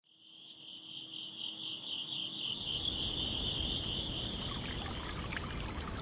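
A chorus of insects trilling steadily, fading in at the start and dying away about five seconds in, while a low rushing noise swells underneath.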